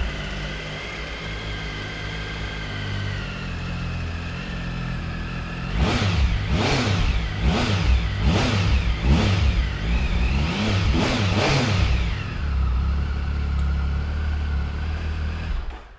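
Triumph Tiger 1050's 1050 cc three-cylinder engine, on its standard exhaust, idling just after a start, then blipped up and down about seven times in quick succession before settling back to idle. It is switched off near the end.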